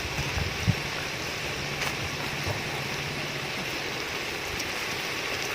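Quail masala frying in a hot pan with a steady, even sizzle, fresh curry leaves just added; a couple of faint clicks.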